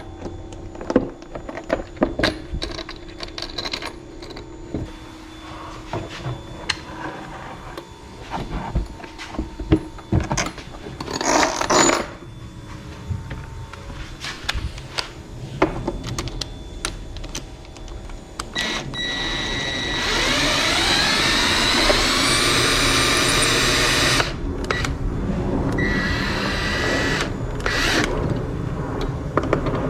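Scattered clicks and knocks of bolts, washers and tools as a bracket is bolted to a plastic ATV hood. About two-thirds of the way through, a louder motor whine sets in, rising in pitch and then holding steady.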